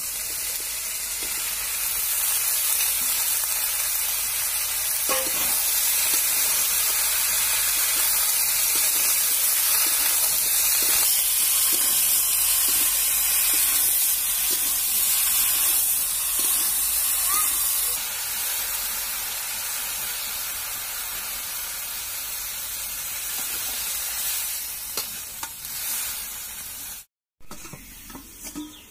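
Food frying in oil in a metal wok, sizzling steadily, with a spatula scraping and stirring now and then. The sizzle grows louder about two seconds in and eases off past the middle, and the sound cuts out for a moment near the end.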